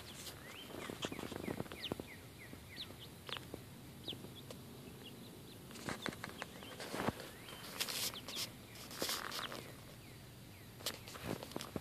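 Chickens giving many short, high, soft chirps in the first few seconds, then loud rustling of feathers and claws scratching on a towel right at the microphone.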